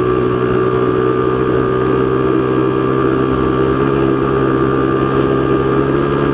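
Z200S motorcycle engine held at steady high revs through an open-pipe Akrapovic Evo GP slip-on exhaust, a loud, even drone.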